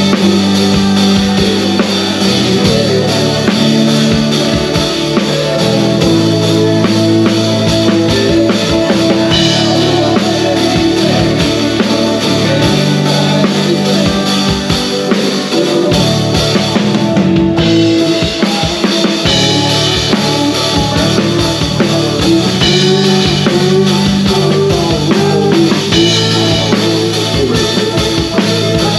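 Live country band playing, with the drum kit up front from the drummer's seat: kick, snare and cymbals keeping a steady beat under electric guitars and keyboard.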